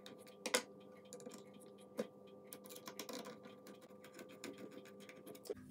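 Small screwdriver driving M3 screws through a robot chassis plate into standoffs: faint ticks and scrapes of the screws and hardware, with two sharper clicks about half a second and two seconds in.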